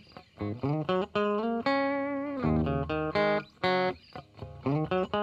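Intro music played on guitar: a run of plucked notes, with a longer held note about two seconds in.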